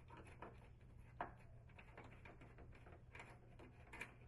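Near silence with a few faint clicks, the clearest a little after a second in and near the end: a screwdriver working the door handle screws out of a Frigidaire gas range's oven door.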